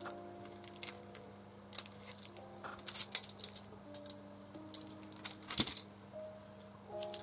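Craft-knife (design cutter) blade cutting a clear masking sheet on a hard end-grain woodblock: short, sharp scratches and clicks at an uneven pace, the loudest about five and a half seconds in.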